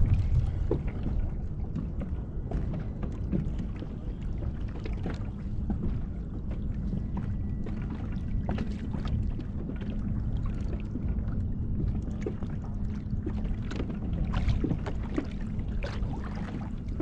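Steady low rumble of water and wind around a fishing kayak, with many scattered light clicks and knocks and a faint steady hum underneath.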